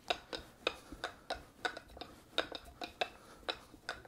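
Rolling pin working pie dough on a bench, giving an irregular run of light clicks and knocks, about three a second.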